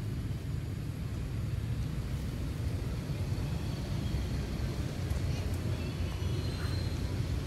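Steady low outdoor rumble of background noise, with a few faint short high-pitched calls in the second half.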